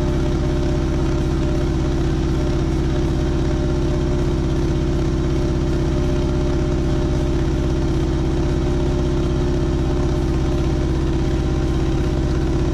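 Chevrolet 305 small-block V8 on Aces EFI Killshot throttle-body injection running at a steady fast idle of about 1,900–1,950 rpm, with no change in speed. The idle is this high because the throttle blades were opened too far.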